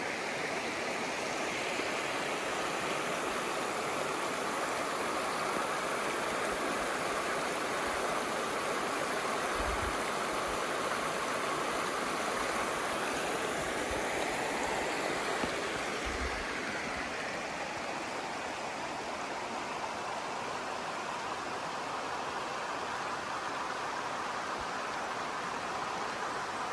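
Shallow river running over a rocky bed: a steady rush of water.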